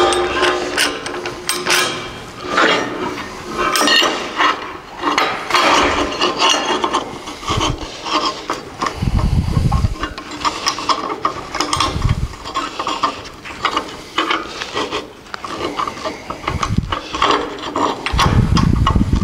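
Steel truck frame rails being handled and worked at by hand: irregular metal clicking, scraping and rattling, with a few dull thumps, the heaviest near the end.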